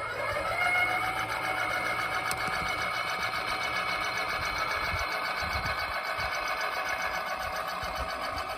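Nice LA861 linear gate actuator's motor running as it swings the gate open: a steady, several-pitched whine that rises as the motor spins up right at the start, then holds.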